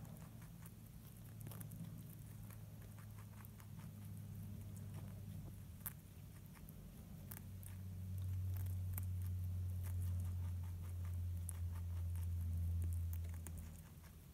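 A Dutch rabbit crunching and nibbling a raw broccoli head: a run of small, irregular crisp clicks. Under it runs a low steady hum, louder from about eight seconds in and fading near the end.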